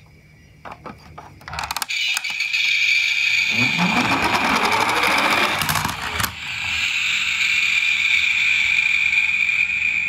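Toy ambulance's gear mechanism: a few sharp clicks, then a steady high whir from about two seconds in, with a louder rough rolling noise in the middle as its plastic wheels run over the floor.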